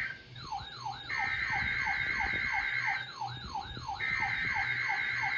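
NOAA Weather Radio Required Weekly Test starting: the station's SAME digital header bursts, a harsh two-tone data screech sent in blocks about a second apart. Over them, weather alert radios sound their alarms, a falling swept whoop about three times a second with a fast warbling high tone above it.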